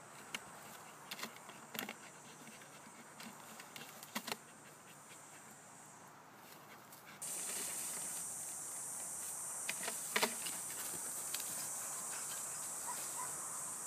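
A husky moving through dry brush: scattered cracks and rustles of twigs and leaves. Behind them is a steady high insect drone, which jumps louder about seven seconds in.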